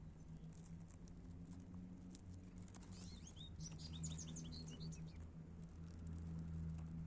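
A small bird gives a quick run of short, high chirps about three seconds in, over a steady low hum and scattered light clicks.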